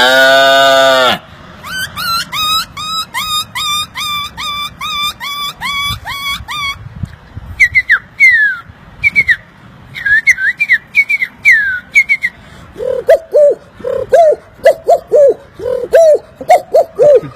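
Mouth-made animal imitations by a man. The end of a low moo cuts off about a second in, followed by a run of whistled bird-like chirps, rising at first and then falling. Near the end comes a lower, quicker string of short cooing calls.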